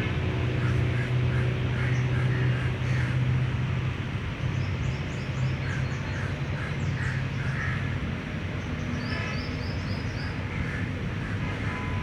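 Several wild birds chirping and calling in short, quick notes over a steady low engine hum; the hum drops away after about eight seconds.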